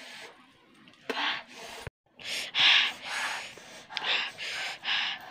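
A woman panting and gasping hard: a string of loud, rapid breaths. They come about two a second after a short break about two seconds in.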